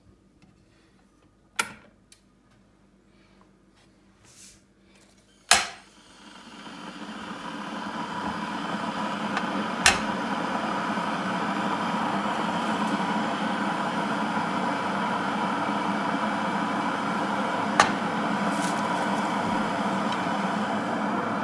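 Electric motor-driven appliance switched on with a sharp click about five seconds in, spinning up over a couple of seconds and then running steadily with a hum. A couple of knocks come before it and two short clicks while it runs.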